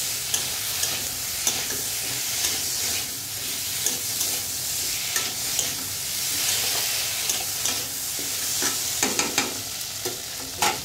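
Spice paste and fried potato and green banana pieces sizzling in oil in an aluminium kadai while a metal spatula stirs and scrapes them, clicking against the pan over and over. The masala is being sautéed down (koshano) before water goes in.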